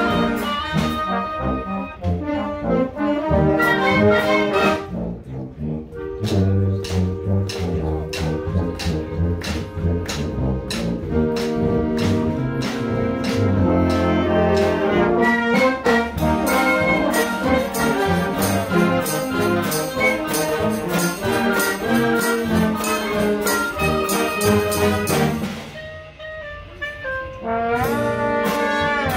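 Concert wind band playing a piece together: brass and woodwinds over a steady beat, dropping briefly to a softer passage near the end before the full band comes back in.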